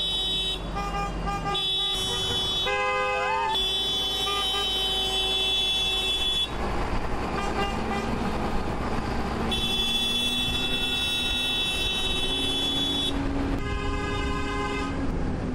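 Vehicle horns honking in a run of blasts, some short and some held for several seconds, in more than one pitch, over a steady low engine rumble.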